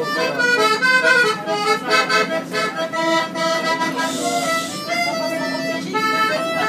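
Accordion playing a lively melody, with a brief hiss about four seconds in.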